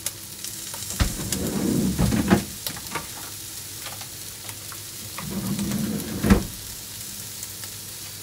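Chicken pieces frying skin-side down in a pan, a steady sizzle. Twice, about a second in and again around five to six seconds in, louder handling noise ends in a sharp knock; the knock near six seconds is the loudest sound.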